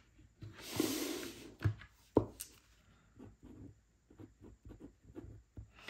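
Paper rustling and sliding on a desk, a few sharp taps, then a pen writing faintly on paper.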